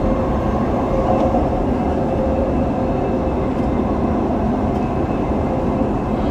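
Dubai Metro train running, heard from inside the carriage: a steady rumble of wheels on the rails with a faint steady tone over it.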